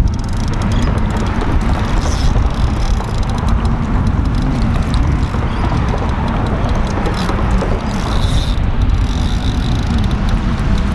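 Loud, steady rumble of wind buffeting the microphone, mixed with road traffic crossing the bridge.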